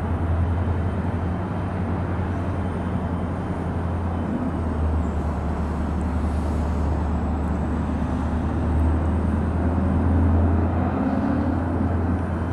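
CSX diesel road locomotive's engine running with a steady low rumble as the unit moves slowly. Its pitch rises slightly in the last few seconds.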